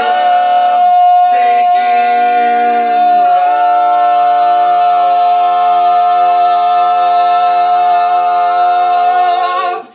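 Four-man a cappella vocal quartet singing. One voice holds a high note throughout while the others move for the first few seconds, then all settle into a long held final chord that stops together near the end, closing the song.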